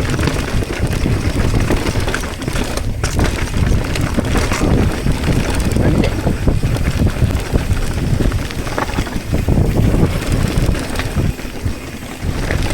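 Mountain bike riding a rough dirt trail: wind buffeting the microphone over the rumble of tyres on dirt, with scattered knocks and rattles from bumps.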